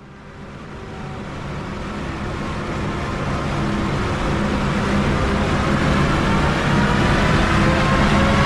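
Mercedes W124 300TD's OM603 turbo-diesel straight-six running under load on a chassis dyno, growing steadily louder, with a faint whine that climbs slowly in pitch from about halfway through as the run speeds up.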